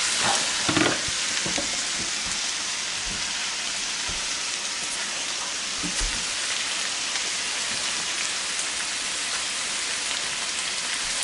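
Ground beef and kidney beans sizzling steadily in a stainless steel skillet on an electric stove, with a few light knocks.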